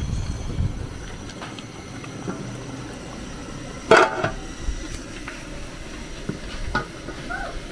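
An aluminium lid is set down on a large aluminium cooking pot about four seconds in: a single loud metallic clang that rings briefly. A few lighter knocks and clicks come before and after it.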